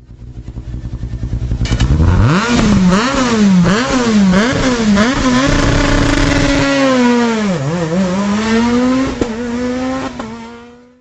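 A racing engine revved hard. It starts with a low pulsing idle that swells over the first two seconds, then gives a run of quick throttle blips rising and falling about twice a second, a held high rev, a short dip, and a second held rev that fades out near the end.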